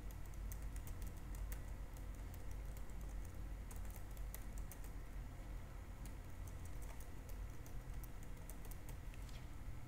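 Typing on a computer keyboard: irregular, quick key clicks over a faint low hum.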